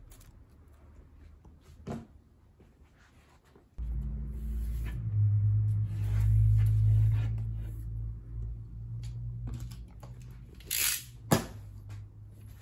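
A low, steady machine hum cuts in abruptly about four seconds in and keeps running. Near the end there is a short tearing hiss, then a sharp click.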